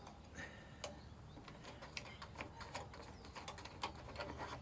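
Irregular small metallic clicks and taps as a screw is worked loose on a Briggs & Stratton lawn mower engine.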